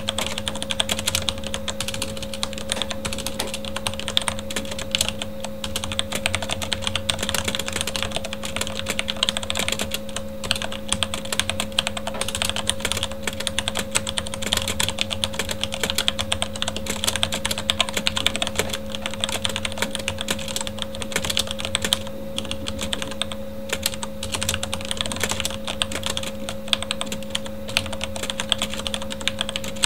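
Fast, continuous typing on a Corsair K70 mechanical keyboard with Cherry MX Red linear switches, a dense, irregular stream of key clicks and clacks. A steady computer fan hum runs underneath.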